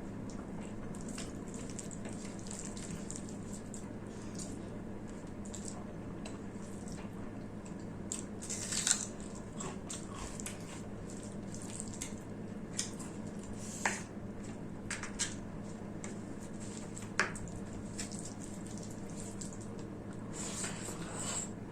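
A person eating rice and mutton curry close to the microphone: wet chewing, squishing and mouth smacks, with a few sharp clicks, over a steady low hum.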